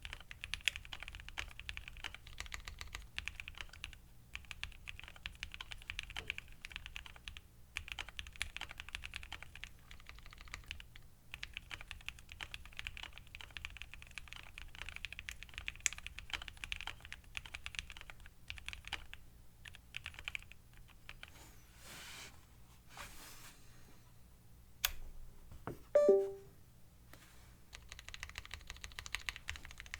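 Continuous typing on a Keychron Q1 mechanical keyboard fitted with lubed Cannonkeys Lavender linear switches, a POM plate, Poron foams and PBT keycaps: muted, soft keystrokes in fast runs with short pauses. Near the end the typing breaks off, and a single short pitched sound, the loudest moment, is heard before the keystrokes start again.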